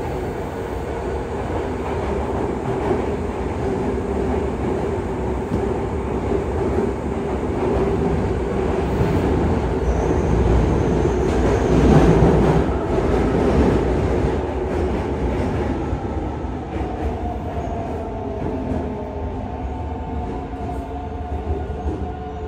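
Cabin running sound of a Yokohama Blue Line 3000A subway train with Mitsubishi GTO-VVVF inverter drive: steady wheel-and-rail rumble under inverter whine as the train slows into a station. The rumble swells about halfway, and a steady whine stands out in the last few seconds.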